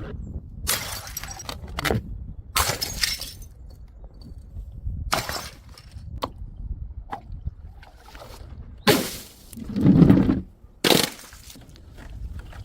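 A series of glass bottles smashing one after another, each a sudden crash of breaking glass with shards rattling after it, the heaviest crashes coming near the end.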